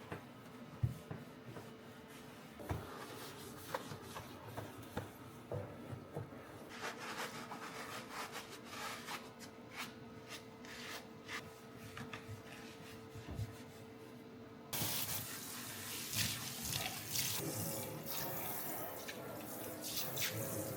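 Small clicks and knocks of things being handled at a kitchen sink, then about fifteen seconds in a tap is turned on and water runs steadily.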